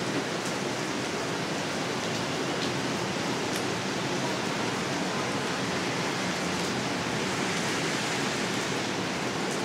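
Heavy downpour: a steady, dense hiss of rain falling on pavement and lawn.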